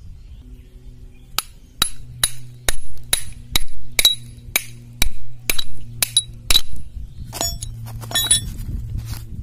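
Hammer blows seating a 6203-2RS sealed ball bearing into a power tiller's fan-belt tension pulley: about a dozen sharp metallic strikes with a ringing tone, roughly two a second, followed by a few lighter clinks near the end.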